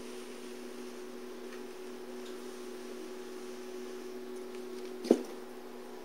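A steady electrical hum made of two low, even tones, with one sharp knock about five seconds in.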